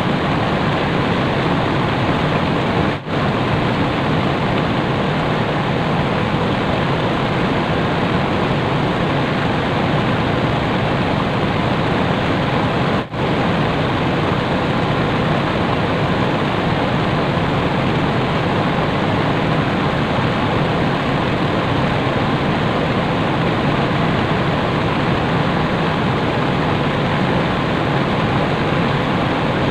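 Steady rushing of river water, an even wash of noise, broken twice by a brief gap.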